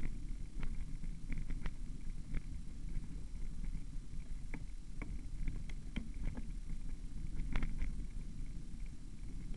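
Mountain bike riding over a bumpy grassy dirt track: a steady low rumble with irregular rattling clicks from the bike as it jolts over bumps.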